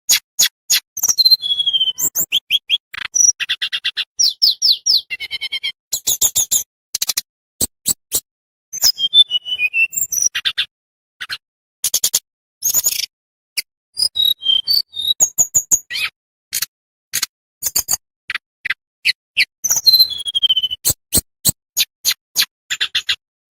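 A tledekan bambu songbird singing a rapid string of sharp clicking chips mixed with short high whistled trills and a few slurred notes falling in pitch, with only brief pauses between phrases.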